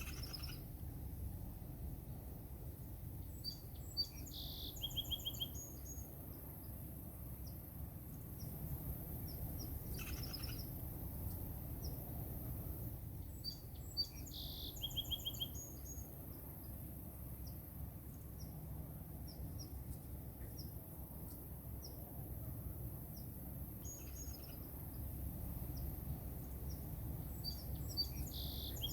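Downy woodpecker calling: short phrases of rapid, high, sharp notes, repeated several times at intervals of some seconds, over a steady low background rumble.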